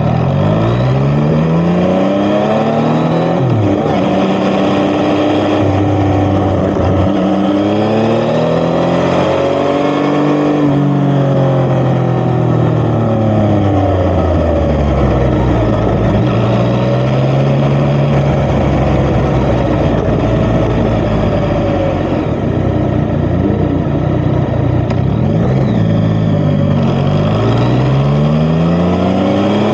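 Yamaha XSR900's three-cylinder engine through an Akrapovic titanium exhaust, heard on the move: it climbs in pitch under acceleration, drops back at each shift or roll-off, and rises again several times over.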